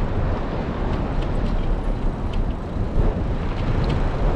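Wind buffeting the microphone during a bicycle ride: a steady low rumble and hiss, with faint, irregular light ticks over it.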